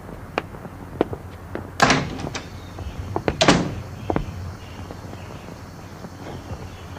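A door banging shut: two loud bangs about a second and a half apart, with a few lighter knocks and clicks around them.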